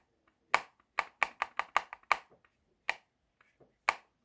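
Sharp plastic clicks and taps from Lego pieces being handled. There are about ten: a quick run of clicks, then two more spaced apart near the end.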